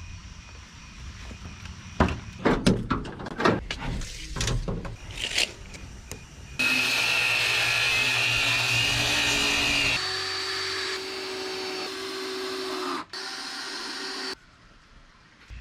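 Knocks and clatter of boards being handled for the first few seconds, then a cordless drill running in long steady runs, its whine at a different pitch in each stretch, stopping shortly before the end.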